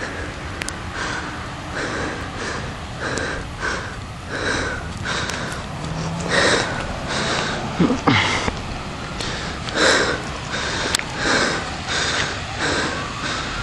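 Close breathing or sniffing at the microphone: short noisy puffs about once a second. Near the end, a faint siren wail rises and falls behind them.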